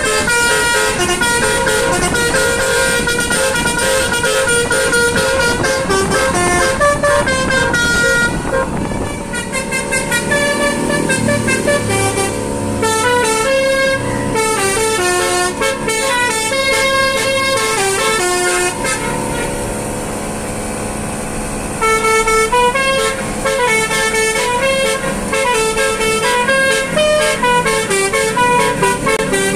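Basuri telolet multi-tone car horns playing a melody of quick, short stepped notes, with brief pauses and changes in the tune.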